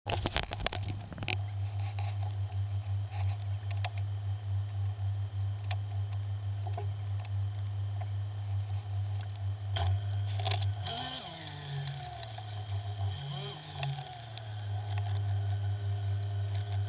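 A boat's motor running at a low, steady idle as the fishing boat moves away from the dock. There are a few knocks and scrapes near the start and again about ten seconds in, and the motor's pitch wavers briefly soon after.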